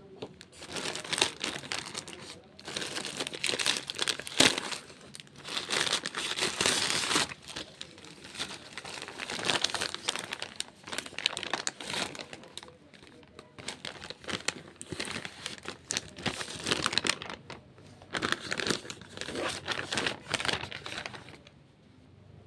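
Packaging around a new T-shirt being crinkled and torn open by hand, in irregular bursts with sharp crackles, stopping near the end.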